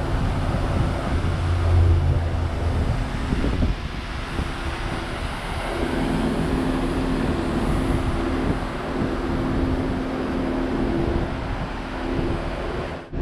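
Car engine idling as the car creeps slowly forward, a steady hum that shifts higher in pitch about six seconds in.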